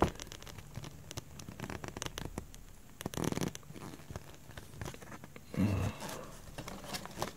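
Paper rustling and crinkling as a printed instruction sheet is handled and folded, then cardboard packaging being moved, with many small clicks and two louder rustles, about three seconds in and near the end.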